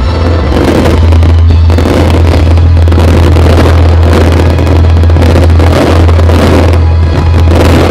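Large fireworks display firing a mass salvo of comets and aerial shells: many rapid, overlapping bangs and crackle merging into one continuous loud din.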